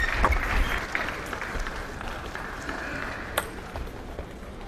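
Table tennis ball clicking off bats and table as a rally ends, then spectators applauding, the applause fading away toward the end.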